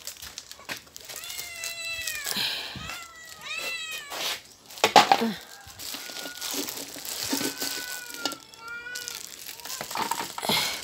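Several domestic cats meowing over and over, short rising and falling calls that overlap, as they beg to be fed. A louder, sudden cry about five seconds in.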